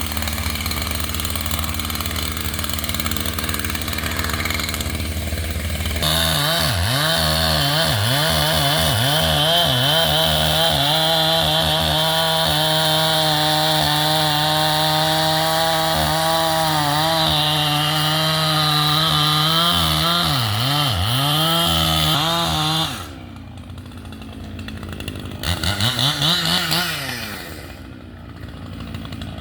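Echo two-stroke chainsaw idling, then run at full throttle from about six seconds in, its pitch dipping and recovering again and again as the chain cuts into ash wood. About 23 seconds in it drops back to idle, then is revved briefly twice near the end.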